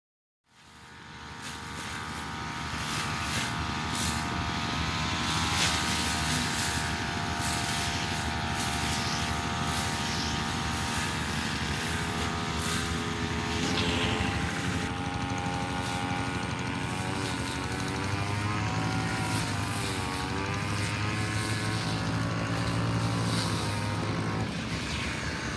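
Two-stroke backpack brush cutter running at high revs while cutting grass. Its whine fades in just after the start and wavers in pitch through the middle as the cutting head works through the grass.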